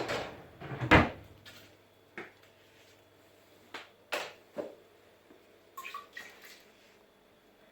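Kitchenware being handled: a cup or bowl set down on the counter with a sharp knock about a second in, then scattered light clicks and taps and a brief squeak.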